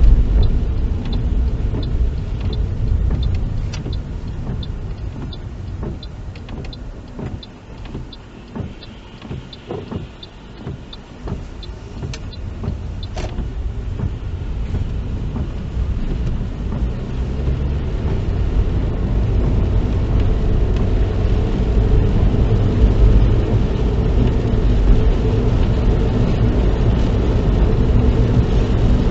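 Car cabin noise while driving, a low engine and tyre rumble. It drops off about eight to twelve seconds in as the car slows, with a few light clicks, then builds steadily as the car picks up speed again.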